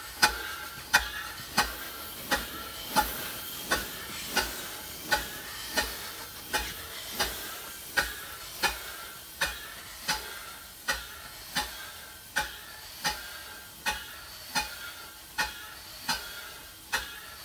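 Early vertical steam engine running slowly on compressed air. It gives a sharp click about every three-quarters of a second, with air hissing between the beats.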